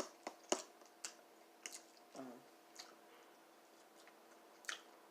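Close-up eating sounds: scattered sharp mouth clicks and smacks while chewing, with a brief hum about two seconds in.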